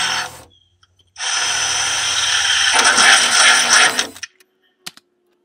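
Cordless drill with a 17/64 bit drilling out pilot holes in a Jeep JK's steel tailgate to rivnut size. It stops half a second in, then starts again about a second in, runs for about three seconds, louder towards the end, and stops; a couple of faint clicks follow.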